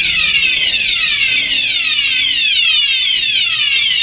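Electronic fire alarm sounder of an addressable Honeywell fire alarm system sounding continuously and loudly, in a repeating falling sweep well under a second per cycle. It is in full alarm, set off by a manual press.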